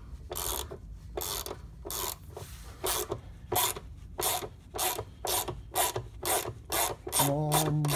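Ratchet wrench with a T30 bit backing out the inspection bolt on the battery pack's drain pan: a steady run of short ratcheting clicks, about three a second. The bolt is being removed to check for coolant leaking inside the battery.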